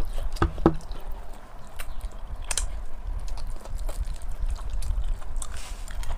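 Close-miked chewing of braised pork and rice eaten by hand, with many short sharp clicks and a couple of stronger strokes in the first second.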